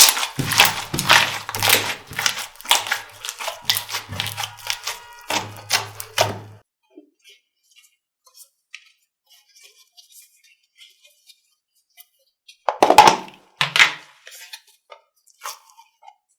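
Slime being squeezed and worked by hand, making a quick run of sticky clicks and pops for about six seconds. Then come scattered faint pops and a short burst of squishing near the end.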